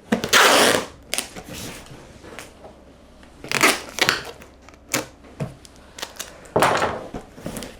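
Packing tape pulled off the roll onto a cardboard box in three long rips, near the start, in the middle and near the end, with short clicks and taps of handling between them.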